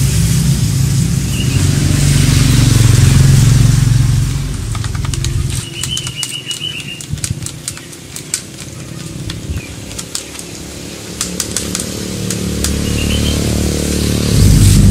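A motorcycle engine running close by, loud at first, fading away about four seconds in and building again near the end. In the quieter middle come light clicks of a thin stirring stick tapping inside a plastic cup of clear coat and thinner, and a small bird chirps a few times.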